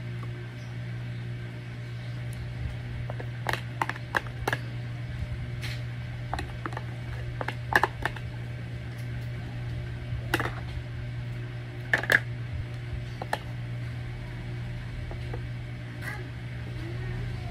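A metal spoon clicking and scraping against a plastic food container as oatmeal is scooped out: scattered sharp clicks, some in quick clusters, over a steady low hum.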